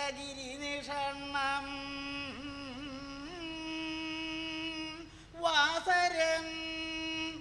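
A performer chanting a verse in the slow, drawn-out Koodiyattam recitation style. The voice holds long notes with slow wavering slides between them, and a new, louder phrase begins about three-quarters of the way through.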